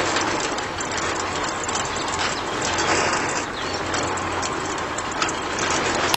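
A train running, a steady rattle of clicks over a low hum, that cuts off suddenly at the very end.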